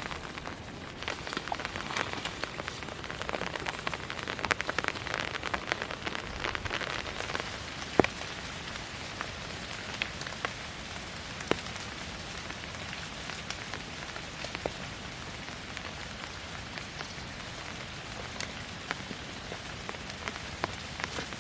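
Rain falling steadily, with many small ticks of drops striking and a sharper single hit about eight seconds in.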